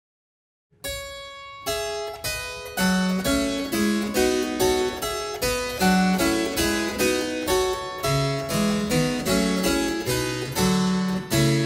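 Harpsichord playing a lively run of plucked notes, several to the second, starting about a second in after silence.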